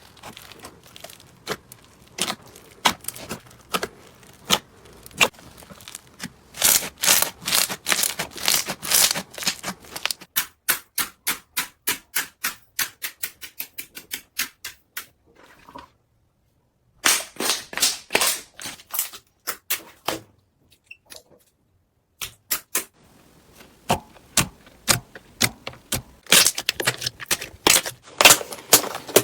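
Crunchy slime being squeezed and pressed by hand, giving runs of sharp crackling and popping clicks, some fast and dense, some spaced out. The clicking drops out to silence for about a second midway and is sparse for a couple of seconds after.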